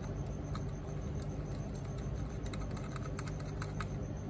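Light, irregular little clicks of a nut being turned by hand onto a motor controller's threaded terminal stud, over a cable's crimped ring lug; the clicks come thicker in the second half, over a steady low hum.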